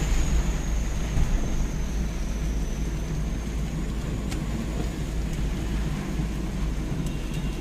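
Heavy rain falling on a car's roof and windscreen, heard from inside the cabin over the steady low rumble of the car rolling slowly.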